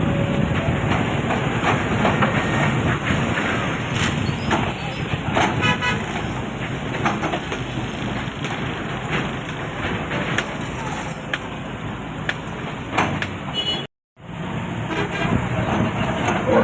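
Doosan excavator's diesel engine running under working load, with sharp knocks and cracks from the machine at work and a short high squeal about five seconds in. The sound drops out for a moment near the end.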